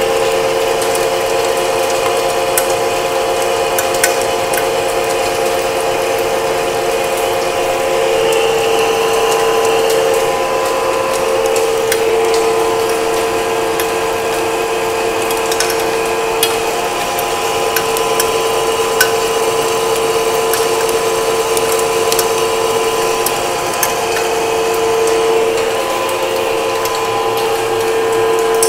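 Engine lathe taking a heavy roughing cut in a solid 1045 steel bar, 0.375 inch deep at 10 thousandths per revolution: a steady whine from the running machine under load with the scraping of the tool, and occasional sharp ticks.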